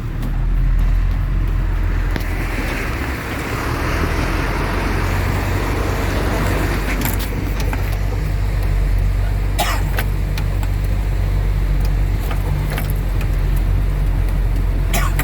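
Truck engine running steadily in the cab while driving through floodwater, with a rushing hiss of water for a few seconds and a few sharp clicks later on.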